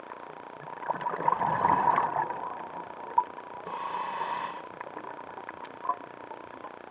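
Scuba diver's regulator breathing heard underwater through the camera housing: a bubbly burst about a second in and a shorter hiss near the middle, over a steady underwater background.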